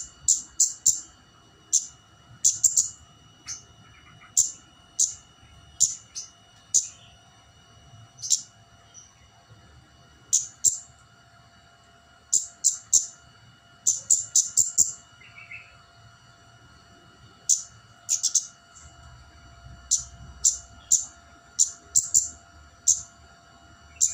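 Flowerpecker (kemade) calling: short, sharp, very high 'cit' notes in quick bursts of two to six, repeated every second or so. These are challenging calls of the kind used to lure a rival bird.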